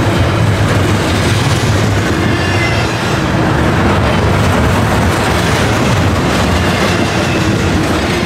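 Double-stack container cars of a Canadian Pacific freight train rolling past at close range: a loud, steady noise of steel wheels running on the rails.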